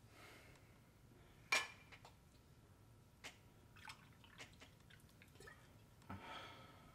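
Faint clinks and light knocks of kitchenware being handled at a counter, the sharpest clink about a second and a half in, followed by a few smaller ticks.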